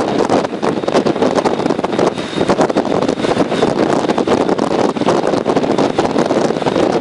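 Strong wind buffeting the microphone aboard a ship at sea: a loud, dense rushing noise that gusts up and down throughout.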